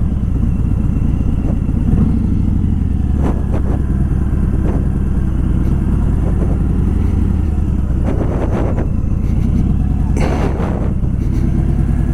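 Motorcycle engine running at low, steady revs, with a few light clicks and a brief rush of noise about ten seconds in.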